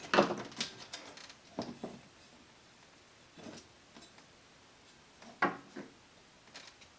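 Scattered small knocks, clicks and rustles of a rotary switch and its wires being handled in a project box while a wire is fitted to a terminal. The loudest knock comes just after the start and another about five and a half seconds in, with near quiet between.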